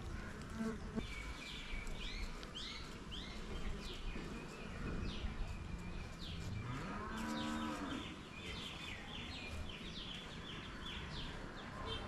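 A cow moos once, about seven seconds in: a long low call that rises in pitch, then holds. Small birds chirp repeatedly in quick high notes around it.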